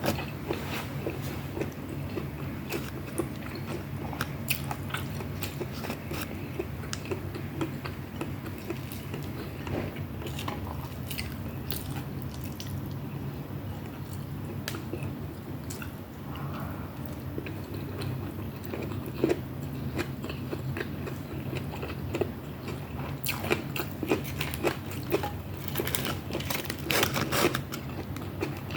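Close-up mouth sounds of someone eating pork adobo and cabbage: chewing and biting with many crunchy bites and wet clicks, thickest near the end. A steady low hum runs underneath.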